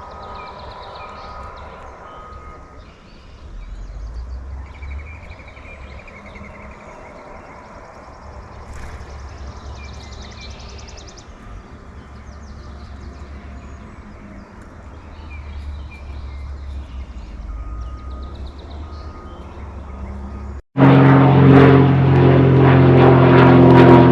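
Outdoor ambience: a low rumble of passing road traffic with scattered small-bird chirps and trills. About three seconds before the end, it cuts abruptly to much louder music with held, organ-like chords.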